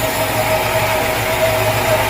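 Sawmill machinery running steadily: an even mechanical noise with a constant whine.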